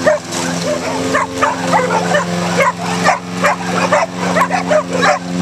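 Pit bulls barking and yipping in rapid, agitated bursts, about three a second, as they go at a running gas lawn mower. The mower's small engine drones steadily underneath.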